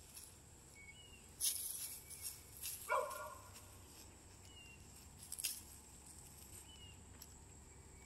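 Gloved hands digging through loose soil mix and dry leaves to unearth sweet potatoes, rustling and scraping in short bursts. One short bark-like call about three seconds in, and faint short chirps every couple of seconds.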